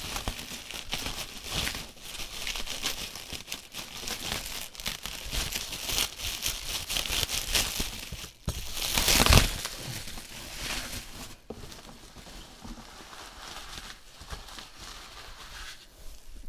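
Plastic bubble wrap crinkling and rustling as it is pulled open by hand, with many small crackles and a louder crumpling burst about nine seconds in.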